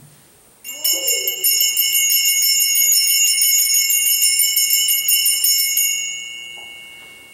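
Altar bells shaken rapidly for about five seconds, then left to ring out. They are rung at the elevation of the consecrated host during Mass.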